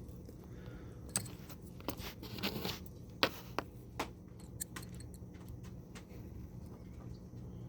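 Small metal clicks and scraping as the steel servo screws are handled and driven with a 1.5 mm hex screwdriver. The clicks are irregular and fall mostly in the first half, with a brief scrape about two and a half seconds in, over a steady low hum.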